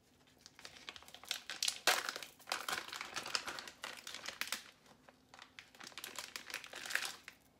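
Thin plastic deli-meat package crinkling as it is peeled open and handled, in irregular crackles, loudest about two seconds in.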